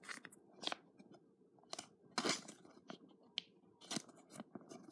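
Faint, scattered crinkles and clicks of a thin plastic card sleeve being handled as a trading card is slid into it.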